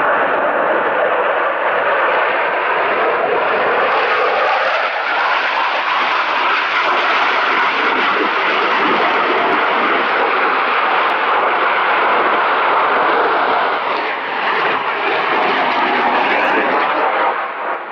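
Delta-wing jet aircraft flying past during a display, its engine noise loud and steady, with the pitch of the noise slowly shifting. The noise drops a little about a second before the end.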